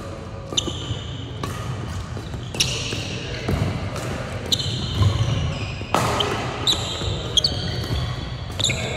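Badminton rally on a wooden sports-hall court: a string of sharp racket strikes on the shuttlecock, roughly one a second and quicker in the second half, with short shoe squeaks and footfalls on the floor.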